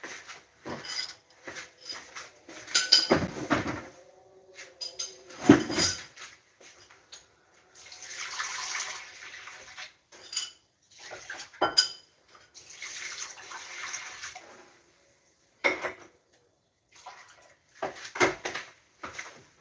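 Dishes and utensils clinking and knocking, with a kitchen tap running in two short spells, at about 8 and 13 seconds in.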